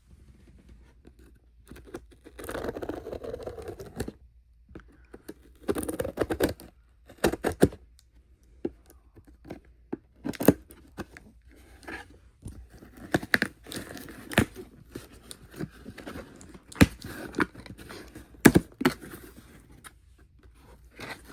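A shipping package being torn open and its wrapping rustled: stretches of ripping and crinkling, then many sharp clicks and snaps as it is handled.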